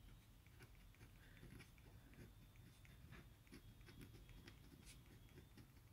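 Faint scratching of a Pilot Parallel pen's nib writing on textured hanji-style 120 g paper: many small irregular ticks as the strokes go down.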